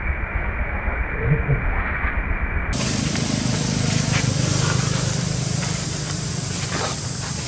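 Steady outdoor background hiss with a low rumble, like wind or handling noise. It changes abruptly to a brighter, fuller hiss about three seconds in, as the recording cuts. A few faint short rustles sit on top.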